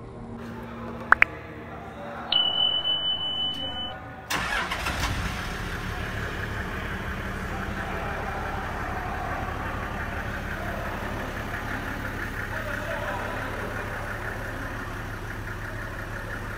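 A couple of clicks, then a steady high beep for about a second and a half, then the Toyota Coaster's engine cranks and starts about four seconds in and settles into a steady idle.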